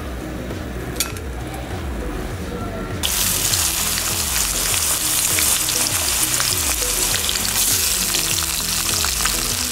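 Diced potatoes deep-frying in hot oil in an aluminium kadai, a dense, steady sizzle that comes in suddenly about three seconds in. Background music with a repeating bass line runs underneath.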